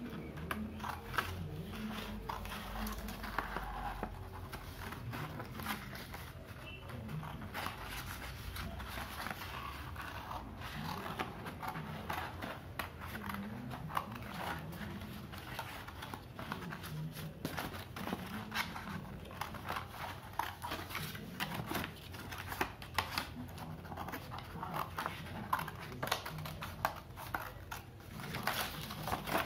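Scissors snipping through sheets of colour paper, many short sharp snips with the paper rustling and crinkling as it is turned.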